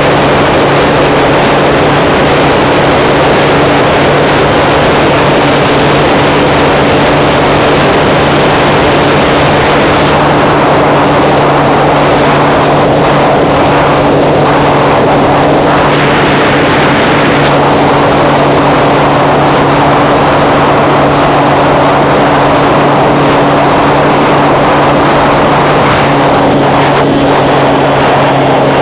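Onboard audio of an electric-powered FPV model plane in flight: the motor and propeller run at a steady cruise with a constant low hum, under a loud rush of wind noise. The sound is thin and cut off at the top, as carried by the plane's video-transmitter audio channel.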